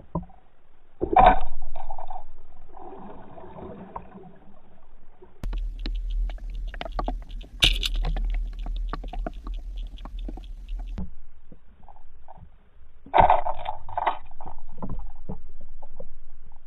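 Muffled underwater sounds heard through a camera's waterproof housing. There is a sharp knock about a second in, then a low rumble with many small clicks and scrapes through the middle, and another loud cluster of knocks and scrapes near the end.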